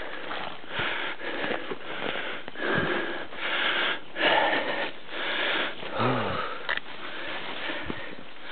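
A person breathing hard from exertion, a heavy breath about every second, worn out by scrambling through thick undergrowth.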